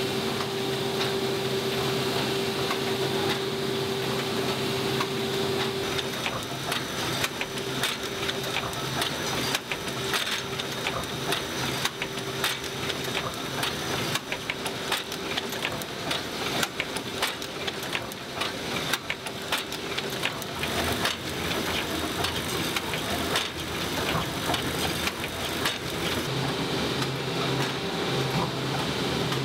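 Print-finishing machinery running: a steady hum with a held tone, then from about six seconds in a dense, fast clatter of clicks from the paper-handling and stitching mechanisms.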